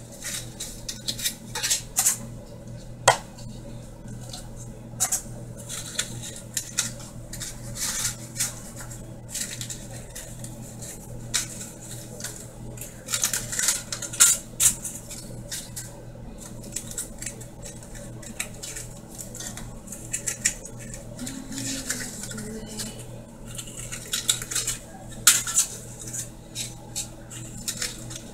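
Kitchen utensils and dishes clinking and clattering in irregular clicks and knocks, with a low steady hum underneath.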